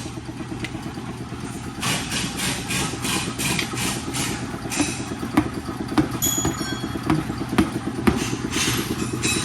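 Auto-shop work noise: a motor running steadily underneath, with scattered metallic clanks and several short, hissing bursts.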